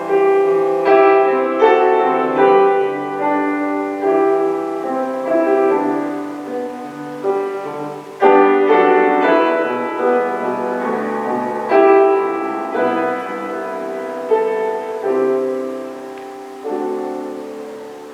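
Solo piano music: a slow, classical-style piece of struck notes and chords, each left to fade.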